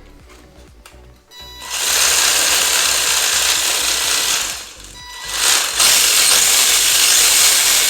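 WLtoys 124019 RC buggy's electric motor and drivetrain run under throttle, a loud, even whirring rush of motor and gear noise. It starts about a second and a half in, drops off briefly about five seconds in, then runs up again.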